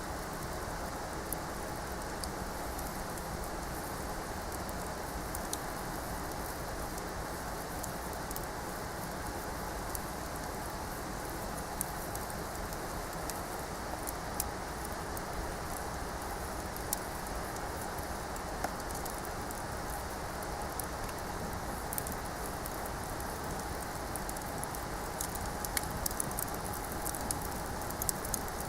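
Wood bonfire burning: a steady hiss with scattered sharp crackles and pops, which come more often near the end.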